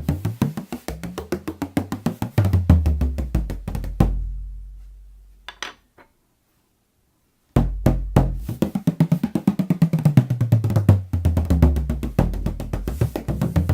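18-inch Meinl tunable bodhrán played in rapid, even strokes, its deep tone rising and falling in pitch. About four seconds in, one stroke is left to ring and die away, a couple of light taps follow, and after a short silence the fast rhythm starts again.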